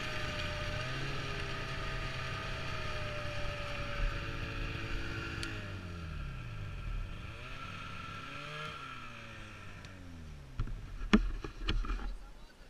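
Snowmobile engine running at low speed, its pitch dropping as it slows about halfway through, with a few sharp knocks near the end.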